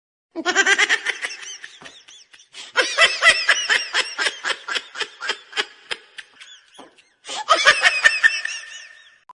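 High-pitched laughter in three bouts of rapid 'ha-ha' pulses, with short breaks about two seconds in and about seven seconds in.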